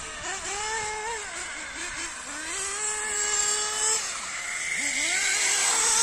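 Radio-controlled model car's motor running at speed, its pitch falling and rising as the car slows for turns and accelerates, growing louder near the end as the car comes close.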